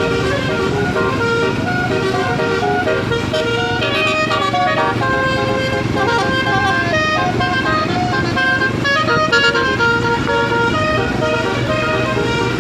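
A bus's basuri telolet horn, a 12-note electric air-horn set with roof-mounted trumpets, playing a quick melody of stepping notes over steady engine rumble.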